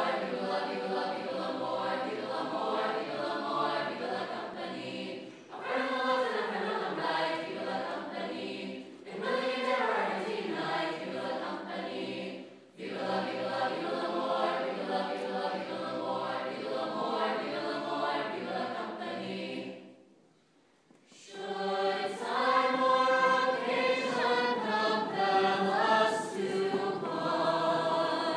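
A show choir singing together, with a clear break in the singing about twenty seconds in before it picks up again a little louder.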